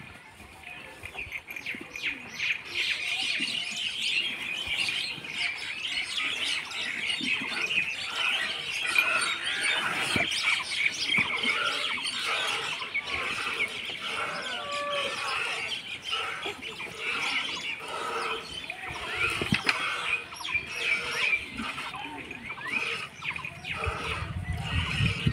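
Milk squirting into a pail in a steady rhythm as a cow is milked by hand, with many birds chirping.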